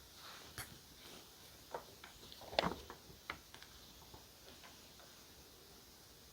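Light clicks and taps of small journaling supplies being handled and set down on a desk, with a louder cluster of clatter and rustle near the middle.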